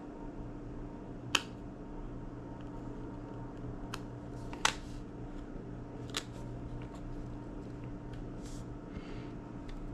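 Small parts of an iPod classic clicking and tapping as they are handled and fitted back together: three sharp clicks, about a second and a half apart, and a few fainter ticks, over a steady low hum.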